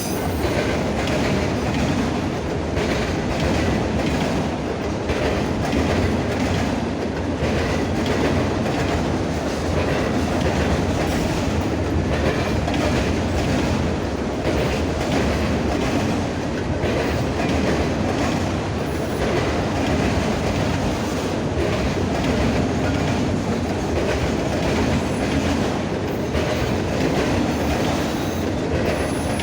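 Norfolk Southern freight train cars rolling past at steady speed, a continuous rumble with wheels clicking over the rail joints.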